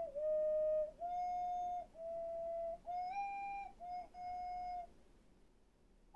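Ocarina playing a run of six held notes, each under a second with short breaks between them, moving up and down in small steps: part of the do-mi-re-fa-mi-so-fa-la practice exercise, heard over a remote lesson connection.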